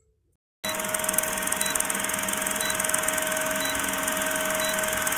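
Film-countdown sound effect of a running film projector: a steady mechanical whir and hiss with a constant hum and a faint tick about once a second. It starts about half a second in.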